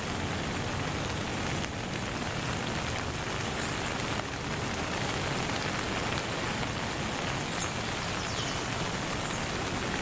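Steady rain-like hiss, as of rain falling, with a few faint short high chirps.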